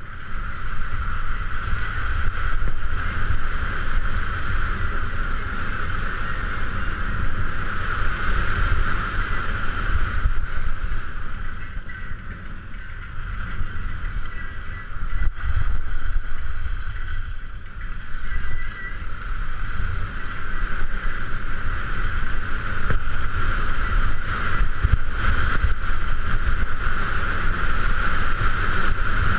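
Wind buffeting a head-mounted action camera's microphone during a fast downhill ski run, a steady low rumble, with the hiss of skis sliding over groomed snow.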